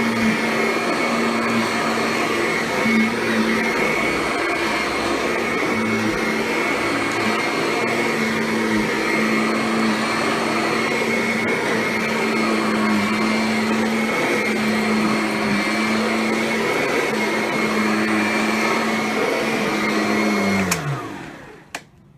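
Kirby Ultimate G Diamond Edition upright vacuum running steadily on carpet, a steady motor hum with a high fan whine. Near the end it is switched off and the motor winds down, falling in pitch, followed by a couple of clicks.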